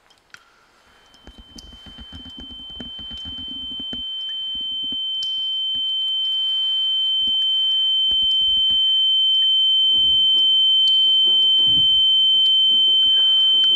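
A single steady high-pitched ringing tone, like ear ringing, swelling slowly louder over about ten seconds and then holding. Faint low knocks and rumbles sound under it.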